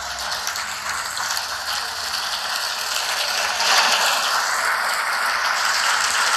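Audience applauding: dense, even clapping that builds over the first few seconds and then holds steady.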